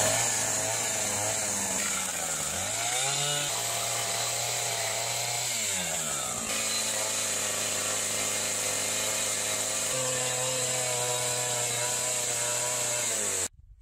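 Two-stroke chainsaw running steadily, its engine pitch rising and falling a couple of times as the throttle changes. The sound stops abruptly near the end.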